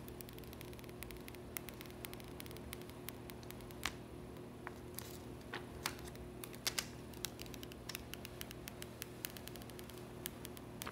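Faint crinkling and small irregular clicks of the protective plastic film being peeled off a new iPhone X, over a steady low electrical hum.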